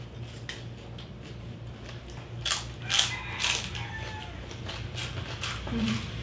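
Crispy skin of a whole roasted pig (lechon) crunching as it is bitten, chewed and broken apart, a series of sharp crunches with the loudest cluster about halfway through.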